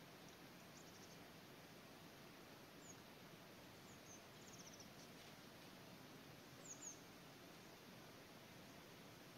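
Near silence with a few faint, high, thin calls of small birds: short down-slurred chirps and a quick run of notes, the loudest a quick pair about seven seconds in.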